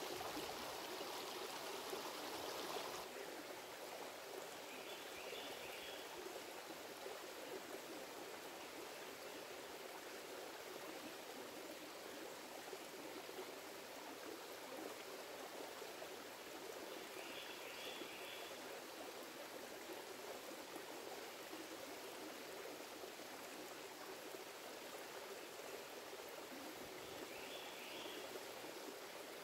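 A shallow creek running over rocks: a steady, even rushing and trickling, a little louder for the first few seconds. Three short, faint high chirps are heard, spread across it.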